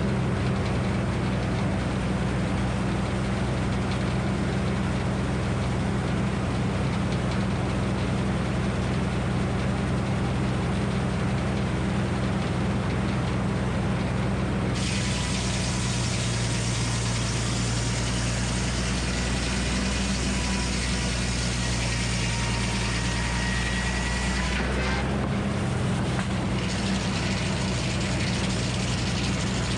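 Minneapolis Moline HEB 605 cubic inch engine running steadily, powering a Frick circular sawmill. About halfway through a higher hiss comes in suddenly and lasts about ten seconds, fitting the saw blade running through the oak.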